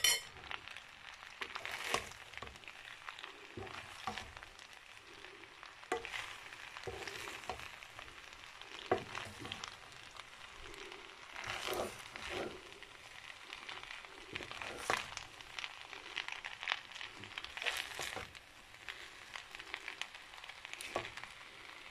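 Shrimp, bow-tie pasta and peas sizzling in a frying pan as a spatula stirs them, with scattered scrapes and taps of the spatula against the pan.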